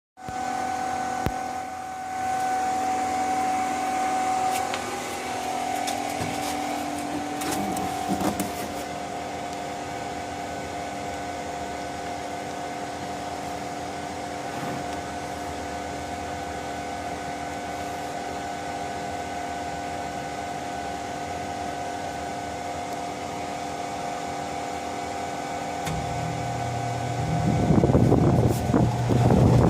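Heat pump running: a steady hum made of several fixed tones over fan noise. Near the end a deeper hum joins, and a louder rushing noise takes over.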